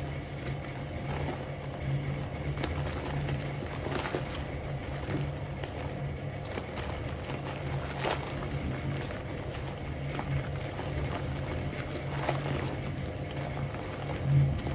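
Hoovermatic twin-tub washing machine's motor and pulsator running, churning a tub of boiling water: a steady low hum that swells and fades, with a brief louder thump near the end.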